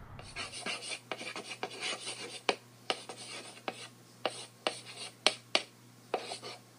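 Chalk writing on a blackboard: quick scratchy strokes broken by sharp taps as the letters are drawn.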